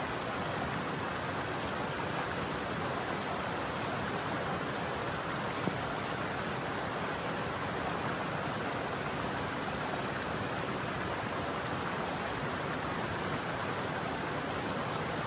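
Steady rush of a flowing creek mixed with rain falling, an even noise that does not change.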